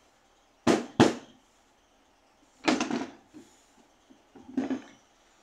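Hammers being handled and set down, knocking against a hard surface: two sharp knocks close together about a second in, then a short clatter near the middle and another near the end.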